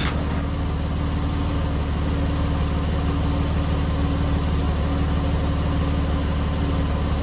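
Porsche 911 Carrera 4S (997) 3.8-litre flat-six idling steadily with a low, even drone.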